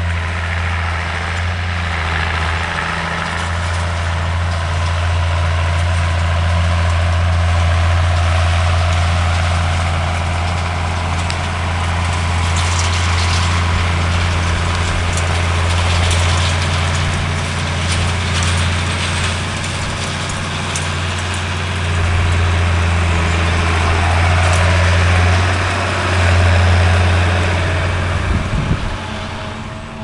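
Tractor engine running steadily as it pulls a twin-rotor grass rake across a cut silage field.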